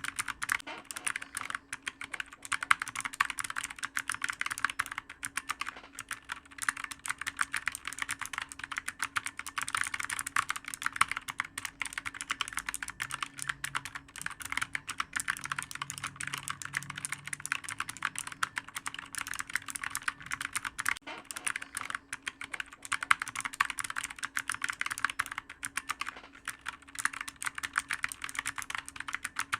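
Continuous fast typing on a clicky computer keyboard: a dense, unbroken run of sharp keystroke clicks.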